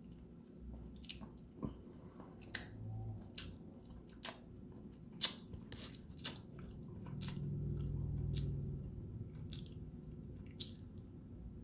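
A person chewing a mouthful of chicken breast sandwich with cheese and pickles close to the microphone: moist smacking and sharp clicks of the mouth, coming irregularly about once a second.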